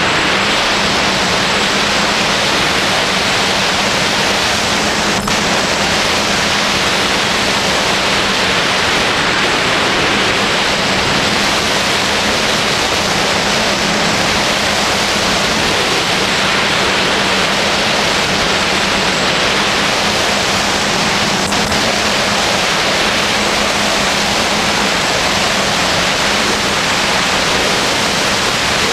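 A quadcopter's propellers and motors heard through its onboard camera: a steady hiss of rotor wash and wind over the microphone, with a low, steady hum underneath.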